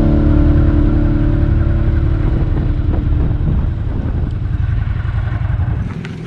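Rock music fades out over the first few seconds, leaving a motorcycle engine running steadily at low road speed, heard from the rider's seat. The engine sound stops abruptly near the end.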